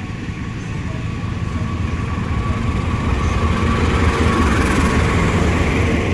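Diesel engine of a CC 206 diesel-electric locomotive running as the train approaches and draws alongside, a low rumble growing steadily louder.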